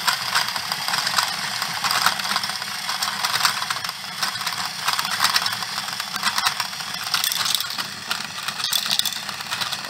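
Toy coal hopper's plastic hand crank and screw conveyor clicking and rattling as it turns, with small plastic balls tumbling and clattering up through the mechanism and into the chute.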